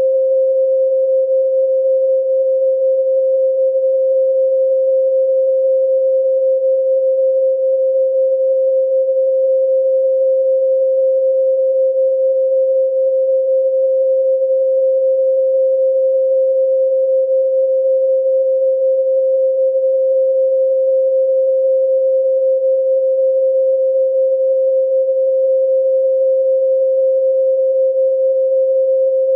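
A pure sine tone at 528 Hz, the Solfeggio 'MI' frequency, held perfectly steady: a single plain pitch with no overtones and no change in loudness.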